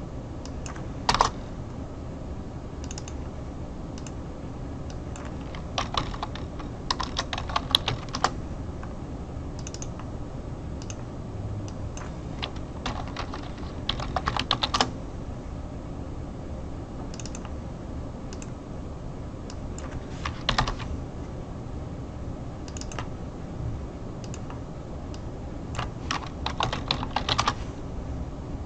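Computer keyboard typing in short bursts of keystrokes separated by pauses, as compound names are entered into a search field. A steady low hum runs underneath.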